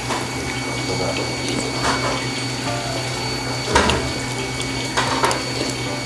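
A spoon scraping and clinking a few times in a stainless steel bowl, with eating sounds, over a steady background hum like running water or a pump.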